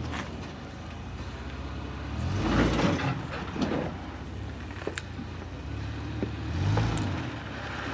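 Toyota Land Cruiser FZJ80's 4.5-litre inline-six running at low crawling speed over rocks, swelling twice as throttle is fed in, with a few sharp knocks.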